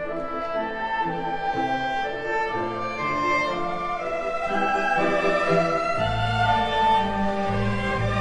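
Orchestral background music led by bowed strings, slow sustained notes, with deeper bass notes coming in about six seconds in.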